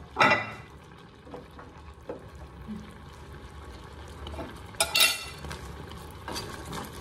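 Two ringing metallic clanks of a metal spoon against a stainless-steel saucepan, about a quarter second in and again about five seconds in, with the low steady sound of curry simmering on the gas stove between them.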